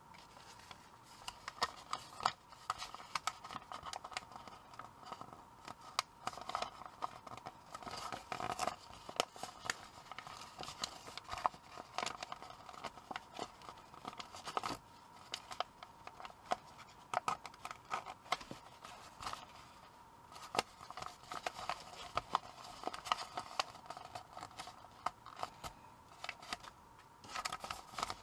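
A sheet of pre-creased origami paper being folded by hand: crackling, crinkling and rustling as the creases are pressed and collapsed, with scrapes of the paper sliding on the table.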